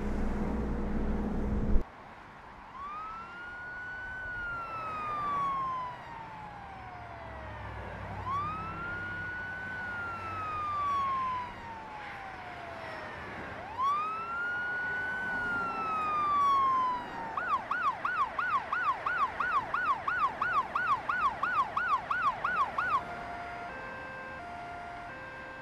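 Ambulance siren heard from inside a car: three slow wails that rise and then fall, then a fast yelp, then short steady tones at alternating pitches near the end.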